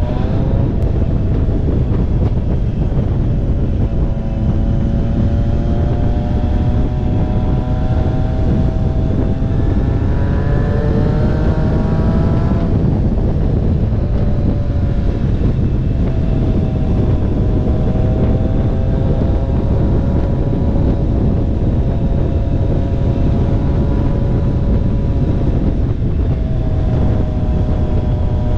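Triumph Street Triple RS inline-three engine running at road speed under heavy wind noise on the microphone. The engine note climbs steadily, drops sharply a little before halfway, then holds steady at cruise.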